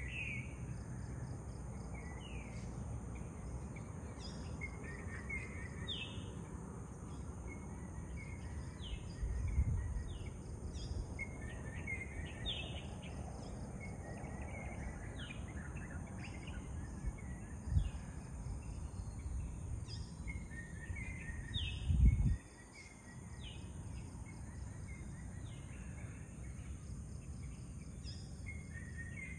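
Dawn chorus outdoors: a bird gives short, sweeping whistled calls over and over, one every second or two, over a steady high drone of insects and a low rumble. A few dull bumps are heard, the loudest about two-thirds of the way through.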